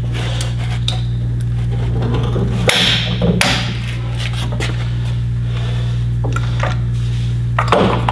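A few sharp metal clanks as a long torque wrench and socket are handled against a semi-trailer's wheel and lug nuts, two a little under a second apart near the middle and one more near the end, over a steady low hum.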